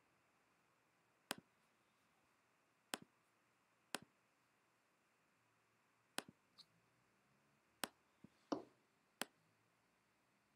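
Computer mouse clicks, about eight sharp single clicks at irregular intervals of one to two seconds, over quiet room tone. The loudest comes about eight and a half seconds in.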